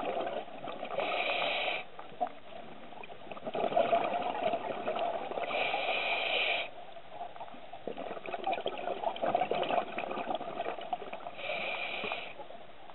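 Scuba diver breathing through a regulator underwater: stretches of exhaled bubbles gurgling out alternate with short hissing inhalations, about one breath every five seconds.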